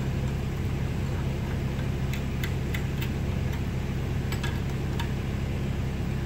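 Diesel engine of a Kubota KX-71 compact excavator idling steadily, with a few light metallic clicks of wrenches on the nut and bolt that secure the bucket pin.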